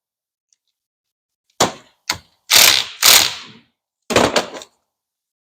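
Hand socket ratchet clicking in several short bursts as a bolt is turned, starting about a second and a half in.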